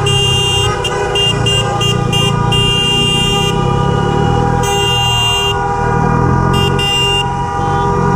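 Car horns honking: a long blast, then a quick run of short toots for about two seconds, then longer blasts about three and five seconds in and two more short ones near the end, over another horn held steadily throughout. Underneath, the low running of the KTM Duke 125's single-cylinder engine.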